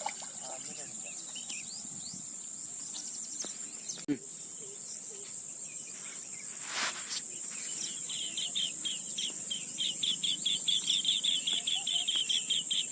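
Insects drone steadily at a high pitch, with scattered bird chirps. About two-thirds of the way in, a fast run of repeated high chirps begins and lasts nearly to the end.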